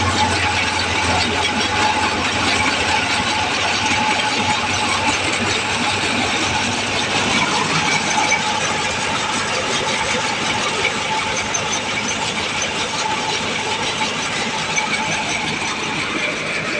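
A machine's engine running steadily, with a constant hum and no change in speed.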